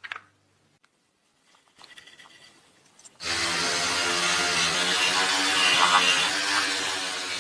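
A power tool is switched on about three seconds in and runs steadily, a constant motor hum under a loud hiss, as if working on metal parts; a click and faint handling noises come before it.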